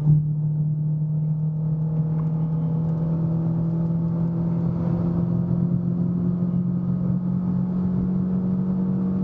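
Renault Sandero RS's 2.0-litre four-cylinder engine pulling under load in fourth gear on a steep climb, its note holding a nearly steady pitch.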